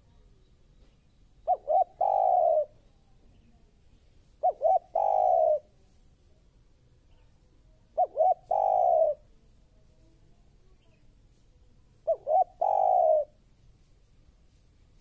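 Spotted dove cooing. Four calls come a few seconds apart, each two short notes followed by one longer coo.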